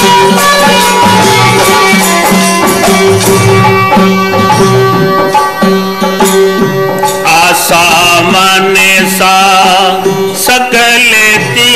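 Indian devotional bhajan music without words: a steady held drone with low drum strokes, joined about seven seconds in by a wavering melody line with vibrato.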